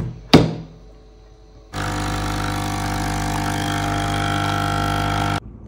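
Capsule coffee machine: two sharp clicks, then its pump running with a steady, loud hum for about three and a half seconds while it brews, cutting off suddenly.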